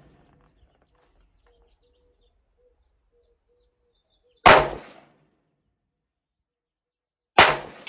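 AR-15 rifle firing two single shots about three seconds apart, each a sharp crack that dies away within half a second.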